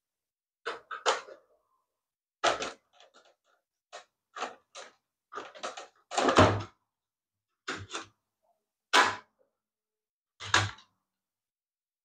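Hard plastic knocks and clicks, about a dozen separate ones, as a 3D-printed battery adapter is handled and pushed into the plastic battery socket of a Black & Decker 18 V strimmer. The loudest, a dull thunk, comes about six seconds in.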